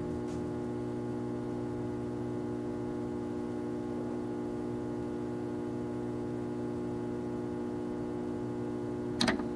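Steady electrical mains hum with a cluster of steady tones, coming through a turntable's playback chain. About nine seconds in there is a short crackle as the stylus of a Shure cartridge is lowered onto the record.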